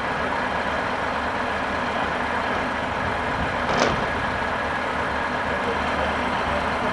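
Heavy vehicle's diesel engine running steadily at the recovery site, with one brief sharp hiss-like noise near the middle.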